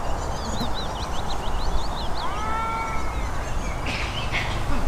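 Birds singing: a quick run of high chirps in the first second, then a few longer gliding whistled notes about two and a half seconds in, over a steady low background rumble.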